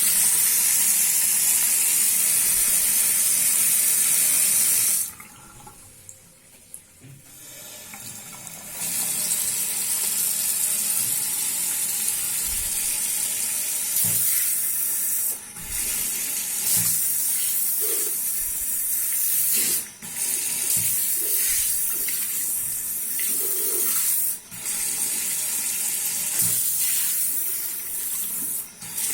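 Water running from a mixer tap with a hygienic (bidet) shower. It stops for a few seconds about five seconds in, then runs again, briefly interrupted several times.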